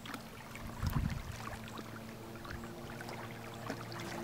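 Small waves lapping and trickling against a pebble lakeshore, with a low thump about a second in.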